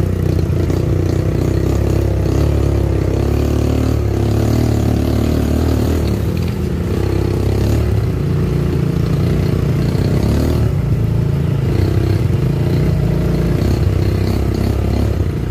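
ATV engine running while riding, its pitch rising and falling with the throttle.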